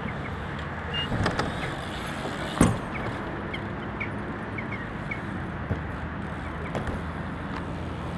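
Steady outdoor background noise in a concrete skatepark, with one loud thump about two and a half seconds in, a few lighter knocks earlier, and several faint short high chirps.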